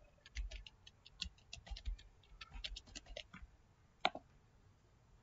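Computer keyboard typing: a quick run of key clicks for about three seconds. Then a single separate click about four seconds in, from the mouse clicking a button.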